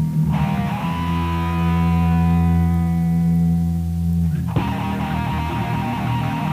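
Raw 1990s black metal rehearsal recording: distorted electric guitar holding a long chord that slowly fades, then striking a new chord about four and a half seconds in.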